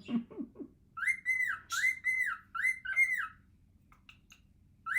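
Cockatiel whistling a quick run of about five rising-and-falling notes of even pitch, then falling quiet.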